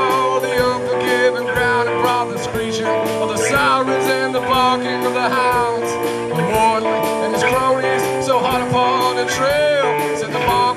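Live three-piece band playing a blues-rock instrumental break: a drum kit keeps a steady beat under amplified stringed instruments, one playing a lead line of bending, sliding notes.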